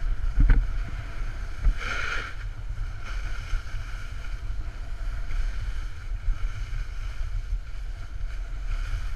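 Wind buffeting the microphone of a camera moving downhill with a snowboarder, over the steady hiss of snowboards sliding on packed snow, with a few light knocks near the start and a short louder rush about two seconds in.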